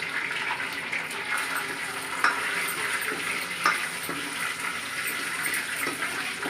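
Hot oil sizzling steadily in a pan as whole spices and dried fenugreek leaves fry in it, while being stirred, with a couple of sharp clicks of the spoon against the pan about two and three and a half seconds in.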